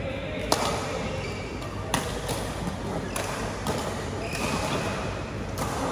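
Badminton rackets striking a shuttlecock in a rally: sharp cracks, the loudest about half a second and two seconds in, with several fainter hits in between and near the end.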